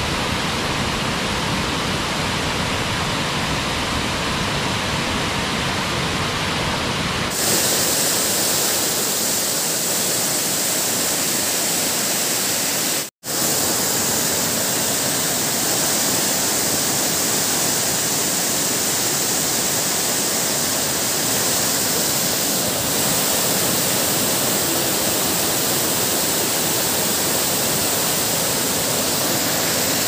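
Steady roar of falling water from a large waterfall. About seven seconds in the tone changes abruptly to a brighter hiss, and about thirteen seconds in the sound drops out for a moment.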